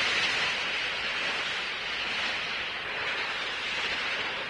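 Sea surf rushing in a steady hiss.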